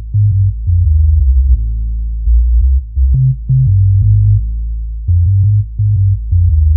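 Bass-heavy electronic music played through a subwoofer: loud, deep synth bass notes that jump in pitch every fraction of a second, with short drum hits and almost nothing in the treble.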